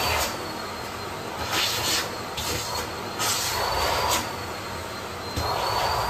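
Bosch BGS21X320 bagless canister vacuum cleaner running, with a faint steady high whine. Its suction noise swells and eases about every two seconds as the hose nozzle works over the suitcase's fabric lining.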